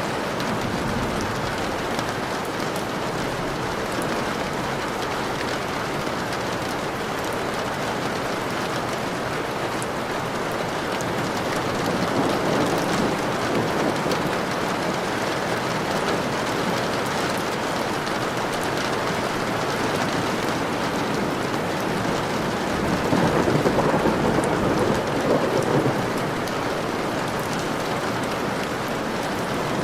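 Steady heavy rain falling, with thunder rumbling up twice, once near the middle and again about three-quarters of the way through.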